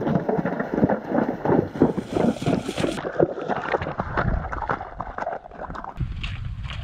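Horses' hooves splashing through a shallow stream crossing: a rapid, irregular run of splashes and water hits. About six seconds in it gives way to wind rumbling on the microphone.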